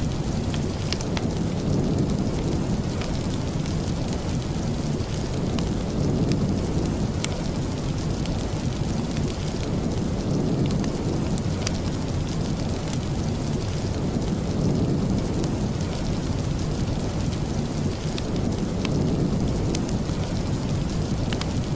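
Steady rain, heavy in the low end, with scattered small sharp ticks.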